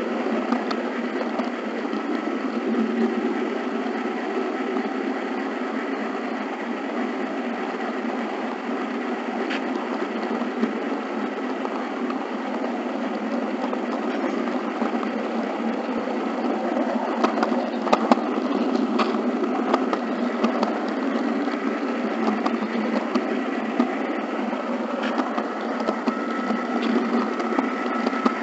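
HO scale model train rolling along the track, heard from a camera riding on the train: a steady mechanical rumble and rattle with a faint steady whine, and a few sharp clicks about two-thirds of the way through.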